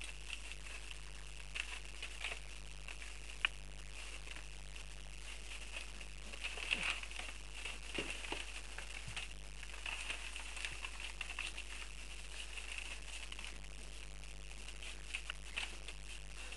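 Dogue de Bordeaux puppies eating at a metal dish of dry kibble on newspaper: scattered small clicks and crackles and rustling of paper as they feed and shuffle about.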